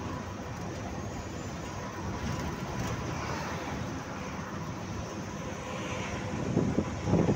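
Steady road and engine noise heard from a vehicle travelling along a highway, swelling louder near the end as it draws alongside a passing truck.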